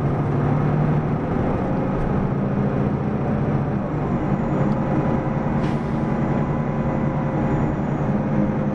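Mitsubishi Fuso Aero Star city bus (PDG-AA273KAN) running under way, heard from inside the cabin: a steady diesel engine hum with a thin steady whine over it.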